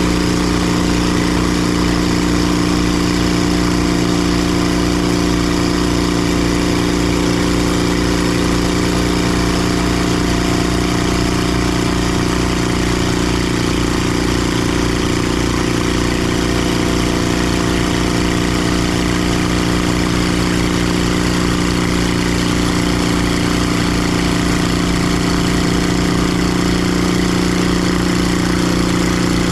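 Timber Harvester bandsaw mill's gas engine running steadily at an even pitch.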